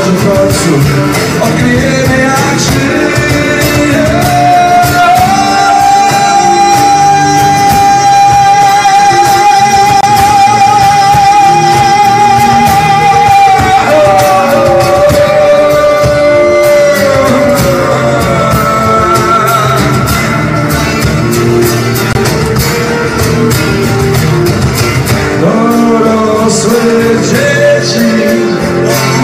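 Live acoustic rock band: a male singer holds a long high note with vibrato for about nine seconds, then drops to a second, lower held note, over strummed acoustic guitars and hand percussion.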